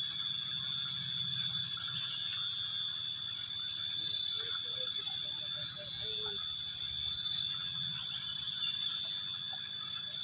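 A steady high-pitched whine held on one unchanging pitch, with a low rumble beneath it and a few faint short chirps about four to six seconds in.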